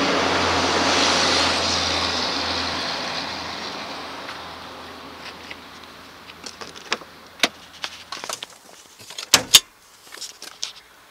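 Vehicle noise with a low hum swells, then fades away over the first several seconds. Then come scattered clicks and knocks as a car door is opened, with two sharp clacks close together near the end.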